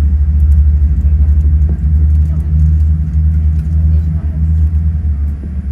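Boeing 787-10's Rolls-Royce Trent 1000 engine starting up, heard from inside the passenger cabin as a loud, low, steady rumble with a faint thin whine above it.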